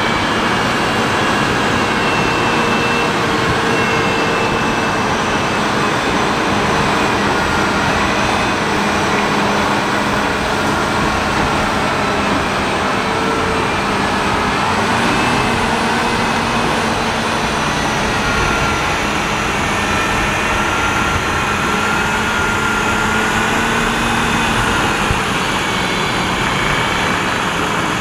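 Caterpillar 637K twin-engine wheel tractor-scraper working, its diesel engines giving a loud, steady drone with higher tones that drift gently up and down in pitch.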